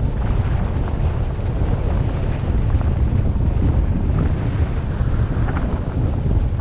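Airflow buffeting the microphone of a camera mounted on a hang glider in flight: a steady, heavy low rumble of rushing wind.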